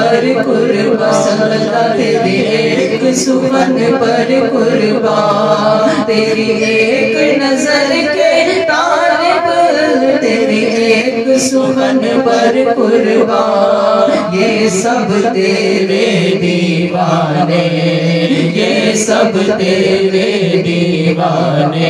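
Men singing an Urdu naat unaccompanied into microphones, a chant-like melody drawn out in long, wavering held notes.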